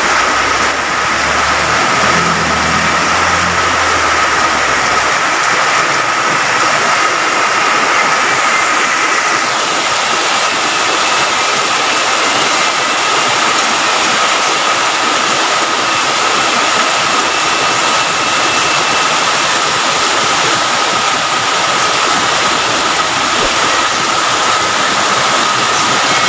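Heavy rain pouring steadily, with a thin high-pitched tone running through it and a low rumble during the first few seconds.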